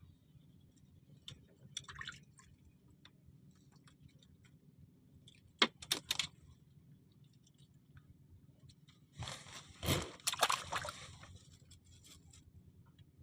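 Water sloshing and splashing, loudest in a short stretch near the end, with a few sharp knocks about halfway through.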